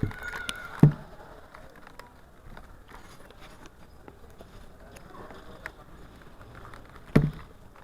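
Two sharp knocks, one about a second in and one near the end, over low steady background noise, with a brief high tone at the start.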